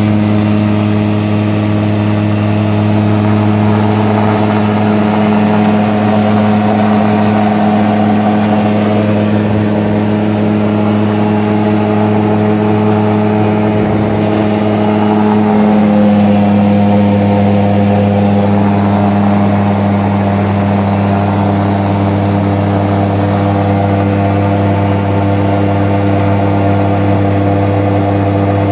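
Super Petrel LS light aircraft's engine and propeller running at takeoff power, heard inside the cockpit: a loud, steady drone. It shifts slightly in pitch about halfway through, as the takeoff run gives way to the climb.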